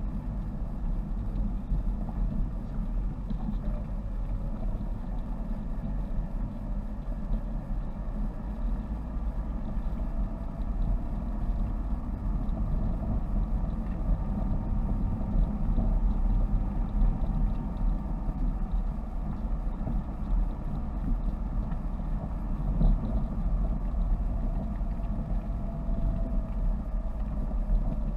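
Car engine and road noise heard from inside the cabin as the car drives along, a steady low rumble with the engine note rising and falling gently.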